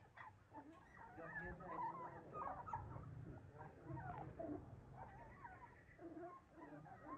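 Young puppies whimpering faintly: a run of short, wavering high squeaks one after another.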